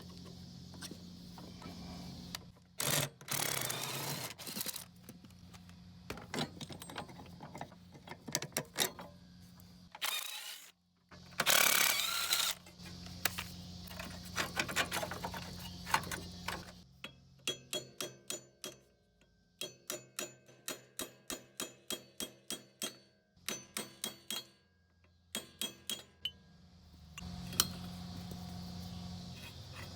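Hand tools working metal on a mower engine's seized mounting bolts: irregular clanks and scraping, then a run of evenly spaced metallic clicks, about two or three a second, that ring briefly. A low steady hum runs underneath.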